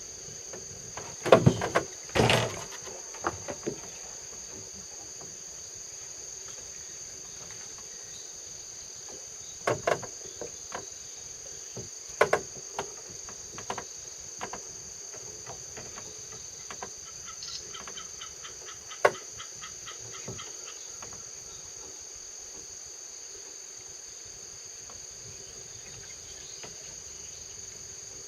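A steady, high-pitched chorus of insects runs throughout, with a handful of sharp knocks scattered through it, the loudest about a second in.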